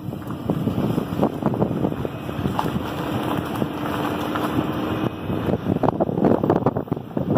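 Wind buffeting the microphone over a low rumble, with a faint steady hum from about two and a half to five seconds in.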